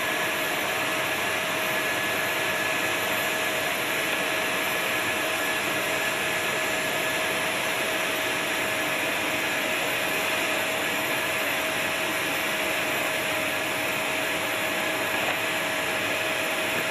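Steady turbine whine with a rush of air from flight-line equipment, holding one pitch with no change.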